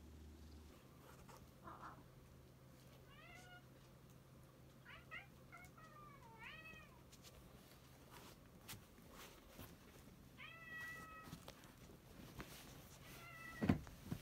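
Domestic cat giving a series of short meows and chirps, several bending up and down in pitch, with a thump near the end.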